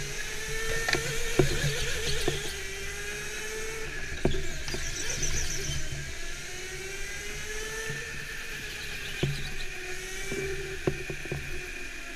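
Go-kart motor whining under the driver, its pitch rising and falling as the kart speeds up and slows through the corners, with a few sharp knocks and rattles from the kart.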